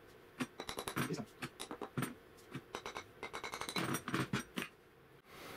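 Bursts of rapid metallic clicks and clinks from the stuck bushing on the end of a planer thicknesser's steel outfeed roller shaft as it is worked by hand. The bushing is galled onto the shaft.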